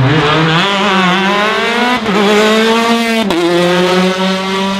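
Rally car engine accelerating hard, its pitch climbing, with two quick upshifts, about two seconds in and again a little over three seconds in, then holding a steady note.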